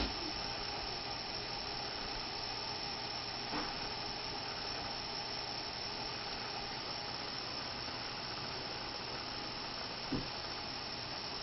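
Small electric cooling fan running steadily, a constant whir with a faint whine, with two faint clicks.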